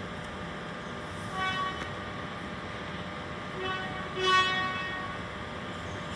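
Electric suburban train's horn giving short toots: one about a second in, then two in quick succession near four seconds, the last the loudest. A steady hum from the train standing at the platform runs underneath.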